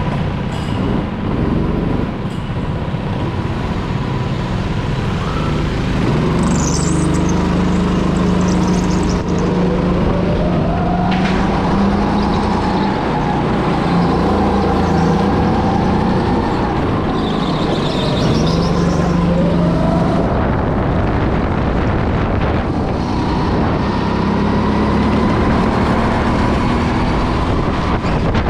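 Go-kart engine running at speed, its pitch climbing and falling again and again as the kart accelerates and slows.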